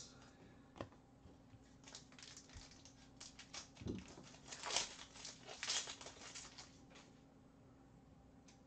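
Faint crinkling and rustling of a trading-card pack wrapper being torn open, along with cards being handled. The loudest crinkles come about five to six seconds in.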